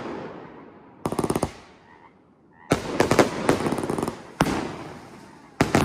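Fireworks cake firing: volleys of loud bangs and crackling, with a quick string of cracks about a second in, a dense stretch of crackling in the middle, and fresh volleys near the end.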